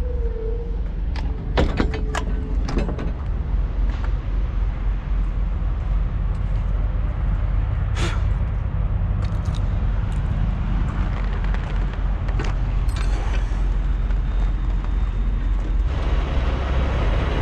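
Sharp metal clanks of a semi-trailer's rear door latches and chain as the refrigerated trailer's doors are opened, a few in the first three seconds and another about eight seconds in. Under them runs the steady low rumble of an idling diesel truck and its reefer unit.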